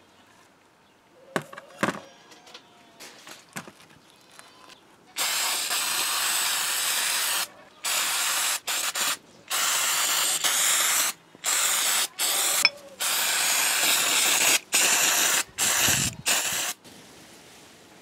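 Aerosol can of paint-remover spray hissing in one long burst, then a run of shorter bursts with brief breaks between them. A few light clicks and knocks come before the spraying starts.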